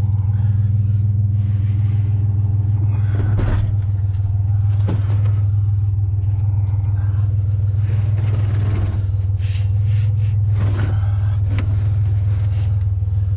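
Pickup truck engine idling steadily with a low hum, while a steel frame knocks and rattles against the truck bed and its load several times as it is loaded.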